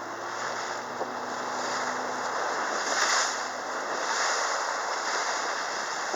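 Water rushing along the hull of a small sailboat and wind buffeting the microphone while it sails close-hauled in strong wind; a steady rush that swells a little about three seconds in and again a second later.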